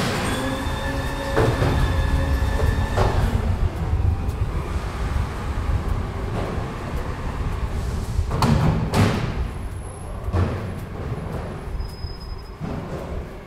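Low, steady rumble of heavy traffic, with a vehicle's steady whine that stops about three seconds in and two short, sharp bursts of noise about eight and a half seconds in.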